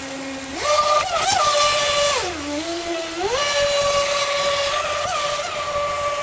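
Brushless motor of an RC jet boat driving a 19 mm water jet, whining with a pitch that follows the throttle. The pitch jumps up sharply about half a second in, falls back about two seconds later, then climbs again and holds high. A rushing hiss rides on top while the motor is at high revs.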